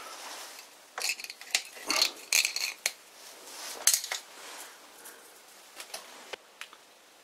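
Long, stringy, blue-tinged steel swarf coming off a lathe cut, clinking and tinkling against the machine in irregular clinks that thin out near the end.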